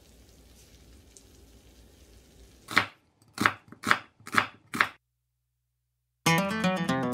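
A chef's knife chopping onion on a wooden cutting board: five sharp strokes about half a second apart, starting a little under three seconds in. Music starts near the end.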